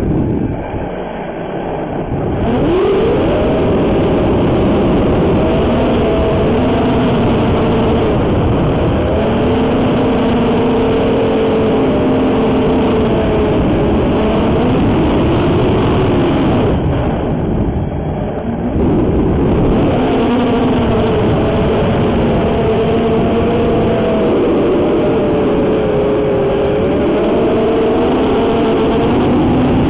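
FPV quadcopter's brushless motors and propellers (ZMX Fusion 2205 2300 kV) heard through the onboard camera's microphone, a whine whose pitch rises and falls with throttle. The sound drops back twice, near the start and again about seventeen seconds in, as throttle is cut, then picks up again.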